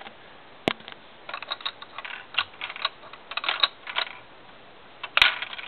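Lego plastic bricks clicking and rattling as hands work a stuck gumball out of a Lego gumball machine. A sharp click about a second in, then a run of small irregular clicks, and a louder clatter near the end.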